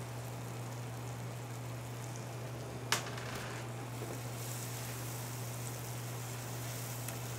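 Butternut squash and ricotta sauce in browned butter simmering and sizzling quietly in a skillet, over a steady low hum. One sharp tap comes about three seconds in.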